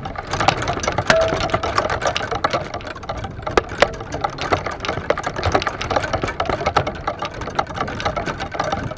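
Golf clubs rattling and clicking against each other in a golf bag on a moving golf cart, with a few sharper knocks among the constant irregular clatter.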